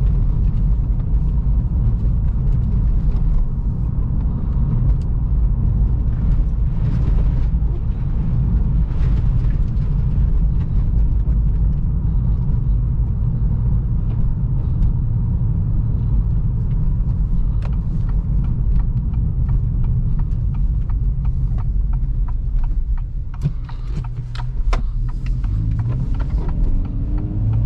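Steady low road and engine rumble inside the cabin of a moving 2023 Acura Integra A-Spec, with scattered light ticks and clicks in the later part.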